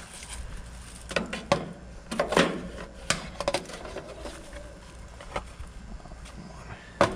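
Irregular clicks and knocks of hand tools and parts being handled while working on a heat pump's electrical panel, with a low steady hum underneath.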